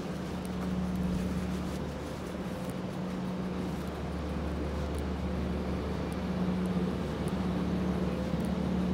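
City street traffic with a steady low mechanical hum.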